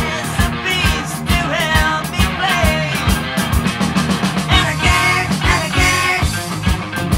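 Rock song playing, with a sung vocal over a steady drum beat.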